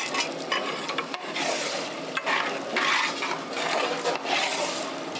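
A pan of vegetable curry is being stirred over the heat as fried cauliflower is mixed into the tomato gravy. Repeated scraping strokes about a second apart sound over a low sizzle, with a few light knocks.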